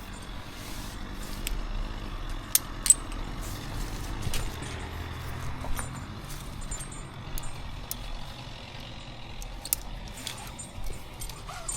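A few sharp metallic clicks and clinks, the loudest two close together about two and a half seconds in, over a low steady engine hum in the background.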